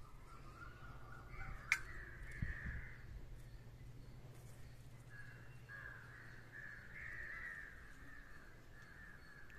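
Crows cawing faintly and repeatedly, the calls overlapping with short gaps. A single sharp click comes a little under two seconds in.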